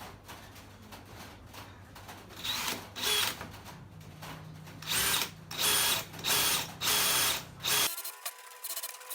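Electric drill run in about seven short bursts, each a brief high whine, with a low steady hum underneath that cuts off near the end.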